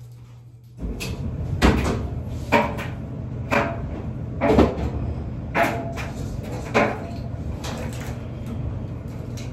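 A front-loading laundry machine starts up about a second in: a steady low hum with a thump roughly once a second as the load tumbles in the drum.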